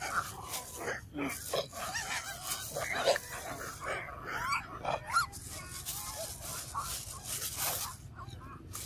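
Long-tailed macaques feeding on cucumbers: crisp crunching and chewing with rustling grass, and a few short squeaks and grunting calls near the middle.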